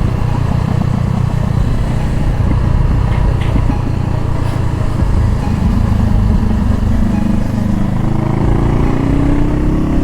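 Honda CBR500R's parallel-twin engine running under way, its note climbing in pitch over the last few seconds as the bike accelerates.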